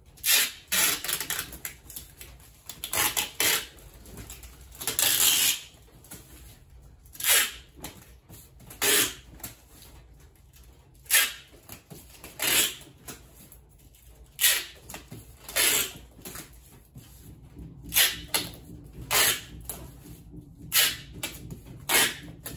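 Parcel being packed by hand with tape and wrapping: about fourteen short rasping bursts, each under a second, with quieter rustling and handling between them.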